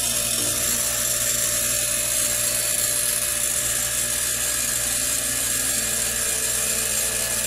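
Window air-conditioner compressor running steadily as a homemade air compressor, humming evenly while it pumps up a one-gallon air tank past about 70 PSI.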